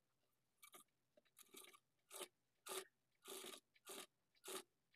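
Faint, short scratchy rustles repeating about every half second: needle and thread being drawn through blouse cloth in a hand-sewn loose basting stitch along the folded neck binding.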